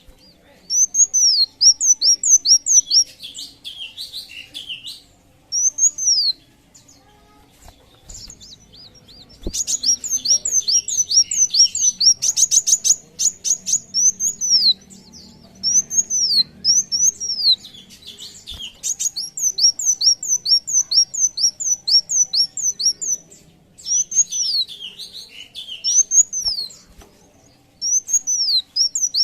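Sunbird song: quick runs of high, arching whistled notes lasting a few seconds each, with pauses between, and a fast buzzy trill near the middle.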